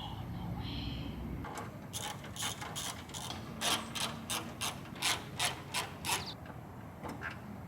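Ratchet wrench clicking through a series of quick strokes, about three a second, as the fastening hardware of a carbon fibre hood scoop is tightened.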